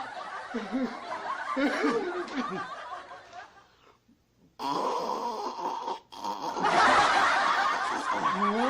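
People laughing and snickering. The sound drops out twice, about four and about six seconds in, then comes back louder.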